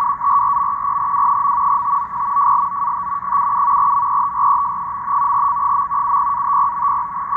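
NAVTEX marine data broadcast from Iqaluit, received strongly in upper sideband on a CountyComm GP7/SSB portable shortwave receiver. It is a steady, rapidly warbling two-tone data signal pitched near 1 kHz over band-limited static hiss. This is the FSK signal that the decoder is reading as it plays.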